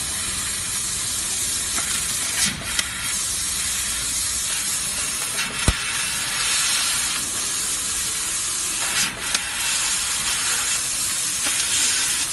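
Fiber laser cutting machine cutting sheet metal: a steady hiss and sizzle of the assist-gas jet and the burning cut at the nozzle, with a few short clicks, the sharpest about halfway through.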